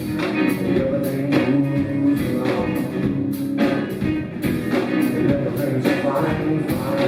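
Rock band playing live, with guitar, bass and a drum kit keeping a steady beat.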